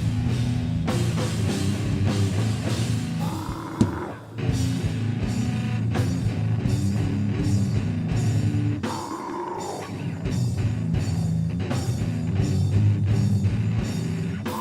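Heavy metal band playing live: a breakdown of low, choppy distorted guitar and bass riffs over steady drum hits, with a short break about four seconds in.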